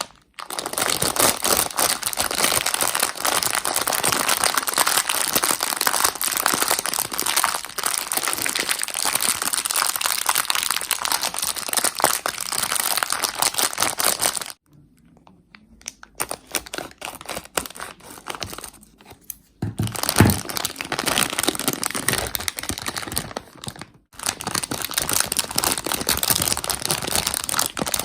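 Plastic Haribo sweet bags crinkling and rustling as they are handled and torn open, in long stretches that stop briefly a few times. A dull thump about twenty seconds in.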